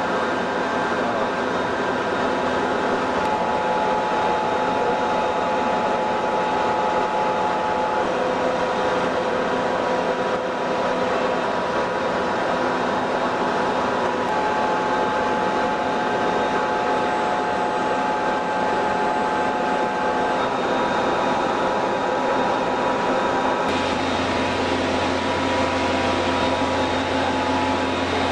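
Rendering plant machinery running steadily with a dense hum and several whining tones. The mix of tones shifts abruptly about 3, 14 and 24 seconds in.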